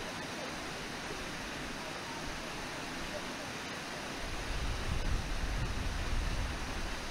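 Steady rushing of a river waterfall, white water pouring over a low falls. From about four seconds in, a louder low rumble joins it and holds until near the end.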